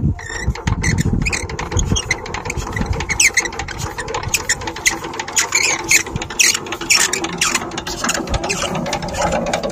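Single-cylinder diesel engine of a walk-behind power tiller being hand-cranked: a rapid, irregular mechanical clicking and clattering, with no steady running note yet.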